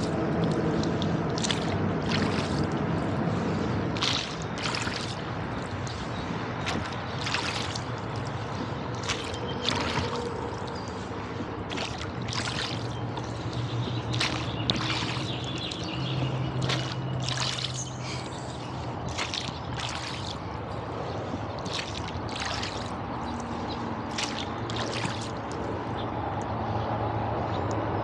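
Wooden oars of a rowing boat dipping and pulling through river water, with irregular splashes and drips from the blades every second or so over water lapping at the hull. A low steady hum runs underneath.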